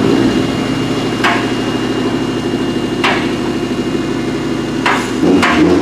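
A car engine running steadily, with four sharp knocks over it, the first about a second in and the last two close together near the end.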